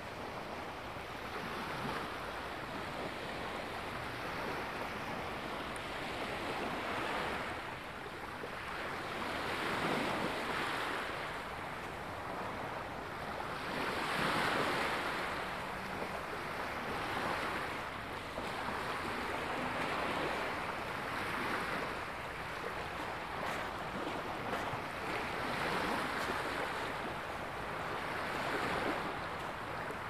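Small sea waves lapping and washing up on a sandy shore: a soft rush of surf that swells and fades every few seconds.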